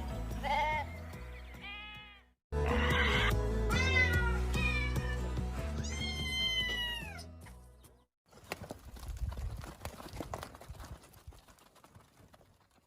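Music with a bass line under repeated high, arching animal bleats, cutting out briefly once; about 8 seconds in the music stops and a crackling noise follows.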